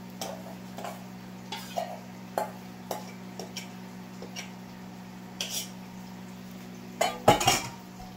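Spoon scraping and knocking against a stainless-steel mixing bowl as fritter batter is scooped out of it. The short clinks come about every half second, with a louder clatter near the end.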